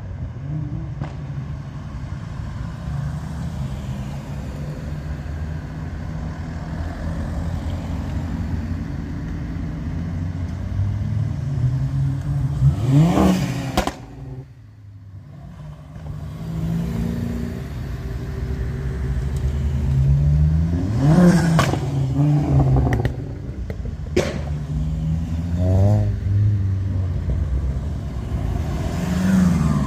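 A line of Ford cars, Focus STs among them, driving out of a roundabout one after another: engines running steadily, with four cars revving up in rising sweeps as they accelerate away. The sound drops away sharply for about two seconds near the middle.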